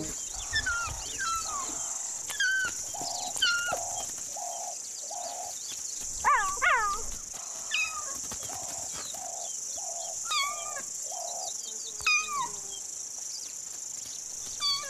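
Cheetah mother chirping to call her hidden cubs: a string of short, high, bird-like calls that fall in pitch, with the loudest cluster about six seconds in. A steady high insect hiss and a repeated lower call run underneath.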